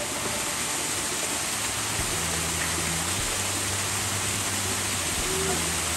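Water pouring steadily off an artificial rock-wall waterfall and splashing into a shallow pool. A faint low hum sits underneath from about two seconds in.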